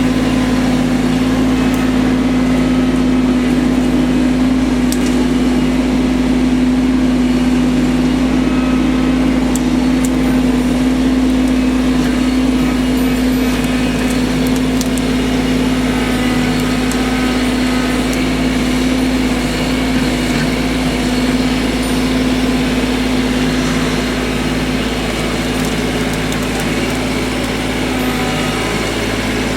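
An engine running steadily at a constant speed, with a few light clicks and knocks over it.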